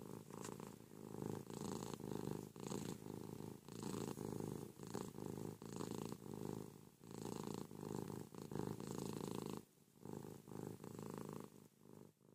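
Domestic cat purring noisily while being stroked, the purr swelling and easing in even pulses with each breath.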